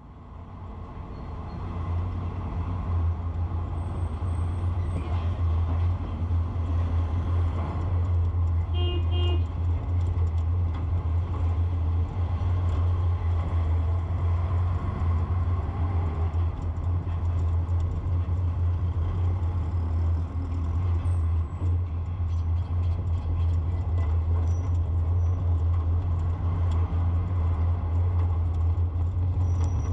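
Steady low drone of a moving vehicle's engine and road noise, fading in over the first couple of seconds, with a short horn toot about nine seconds in.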